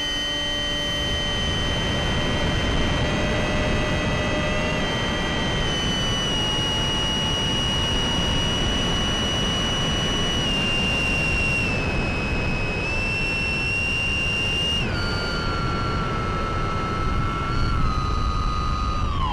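Brushless electric motor (Sunnysky 1240kv) spinning an 8x6 propeller on a Mini Talon FPV plane in flight: a steady high whine over a rushing noise, its pitch stepping down twice as the throttle is eased, then falling steeply at the very end.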